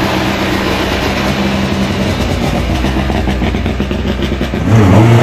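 Škoda Fabia S2000 rally car's 2.0-litre four-cylinder engine running steadily at low revs as the car pulls away slowly, then revving up sharply and loudly near the end.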